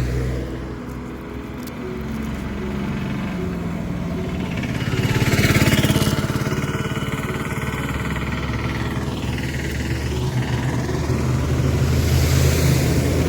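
TVS Raider 125's single-cylinder engine running steadily under way, with wind and road noise; a louder rush of noise swells about halfway through.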